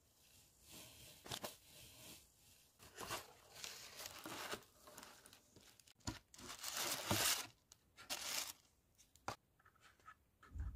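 Paper gift packaging and tissue paper rustling and crinkling as hands undo a ribbon, open a folded paper gift box and lift out a boxed hand cream. It comes as a run of irregular rustles, the loudest a little after halfway.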